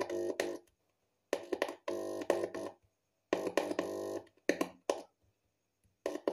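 Amplifier-driven speaker buzzing in about four short bursts, each a steady low hum with many overtones, as fingertips touch the Intex home theater amplifier board. This is the finger-touch test of an amplifier channel: the buzz shows the channel is passing signal to the speaker.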